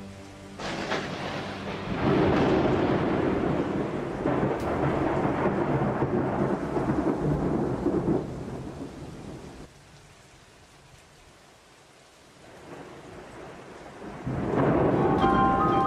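Thunderstorm: thunder cracks about half a second in and rumbles on with rain noise. It dies away to a lull around ten seconds in, then builds again into a loud second clap of thunder near the end.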